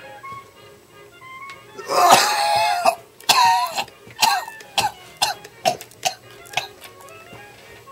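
A man's heavy smoker's cough: one long loud cough about two seconds in, a second shortly after, then a run of six shorter coughs that get weaker, over faint background music.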